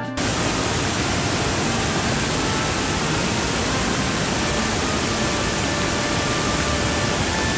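Waterfall plunging over rock: a steady, even rush of falling water.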